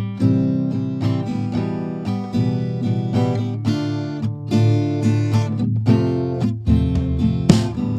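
Background music: an acoustic guitar playing strummed and plucked chords.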